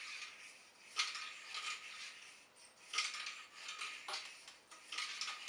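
Cleaning rod scraping up and down inside a detached Remington 870 shotgun barrel, one stroke about every two seconds. Each stroke starts with a sharp click and runs into a scraping hiss lasting most of a second.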